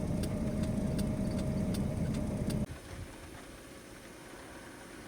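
A car's steady running noise with a faint held tone and light ticks, cutting off abruptly a little over halfway through and leaving only a faint hum.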